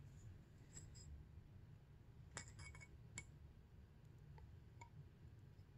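Mostly near silence, with a few faint, light clicks of a dirt-bike throttle tube being fitted into its housing and turned by hand. The clicks come in a small cluster about two and a half to three seconds in.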